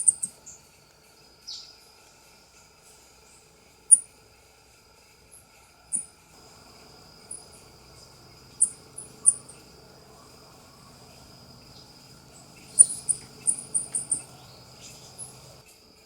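South American coati (Nasua nasua) giving short, very high-pitched chirps: single chirps a few seconds apart, then a quick run of about six near the end.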